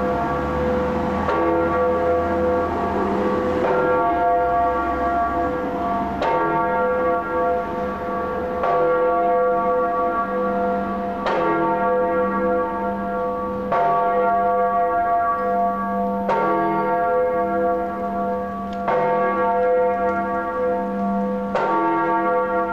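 The Freiheitsglocke (Freedom Bell), a large bronze bell, swinging and ringing. Its clapper strikes about every two and a half seconds, and each stroke keeps ringing into the next.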